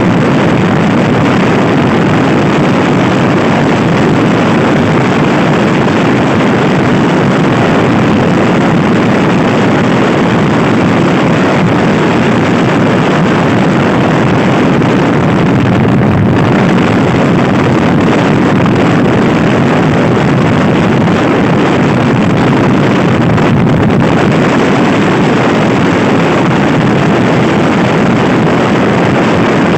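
Loud, steady wind noise on the microphone of a Honda Scoopy i scooter ridden at speed.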